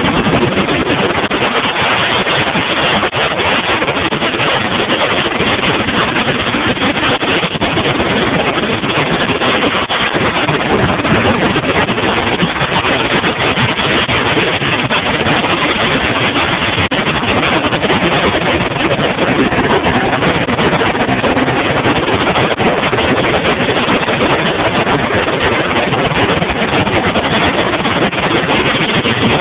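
Motorboat running steadily at speed: constant motor noise mixed with rushing water from the hull and wake and wind on the microphone.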